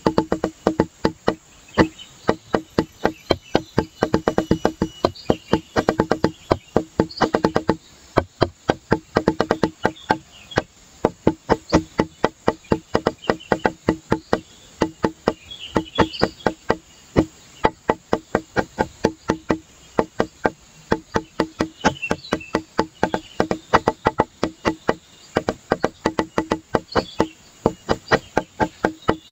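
Background music with a quick, even clicking beat like a wood block, about three or four clicks a second, over a steady low note.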